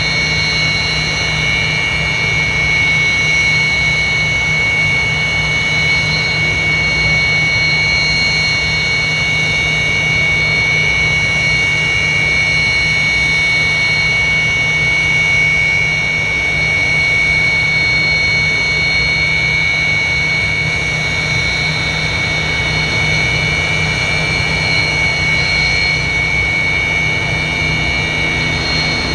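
Sukhoi Su-27 Flanker's AL-31F jet engines idling on the ground: a loud, steady turbine whine with several high tones over a low rumble.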